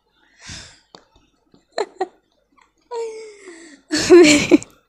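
A young woman giggling, the loudest burst of laughter near the end, after a breath and a few short voiced sounds.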